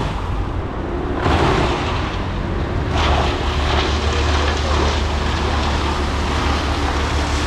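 Wood chipper's engine running steadily under load with a deep hum and a broad rushing noise, growing louder about a second in and again about three seconds in as material is fed through.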